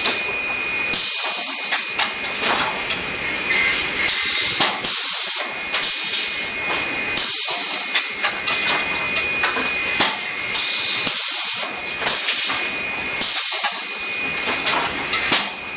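Cameron Quick Rip industrial rip-saw line running loudly, its feed rollers and saw turning, with a thin steady high whine. A bright hissing rush swells for about a second every three seconds or so.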